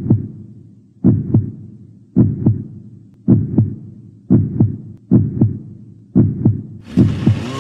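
Heartbeat sound effect: deep paired lub-dub thumps repeating about once a second. A rising swell leads into music just before the end.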